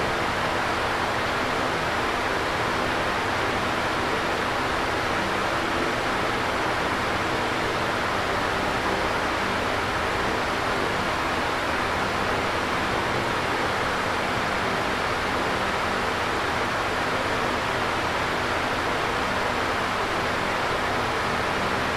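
Electric fan running steadily: an even whooshing rush of moving air with a faint low motor hum beneath it.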